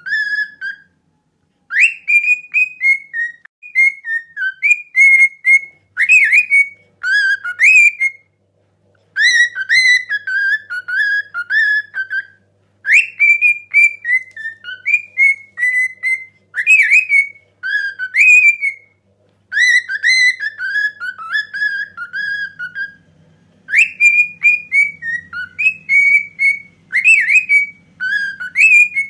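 Cockatiel whistling a learned mehter march melody: phrases of quick, warbling whistled notes, broken by several brief pauses.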